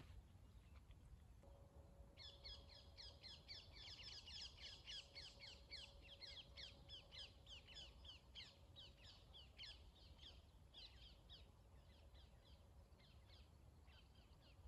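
Faint, rapid chattering of birds: a long run of short, falling chirps, several a second. It starts about two seconds in and thins out toward the end.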